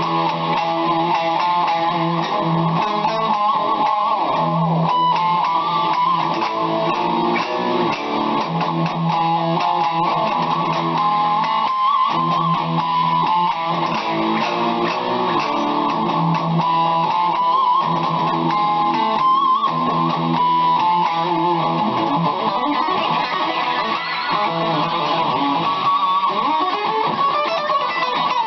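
BC Rich Mockingbird electric guitar played continuously, a run of sustained notes and chords with no pauses.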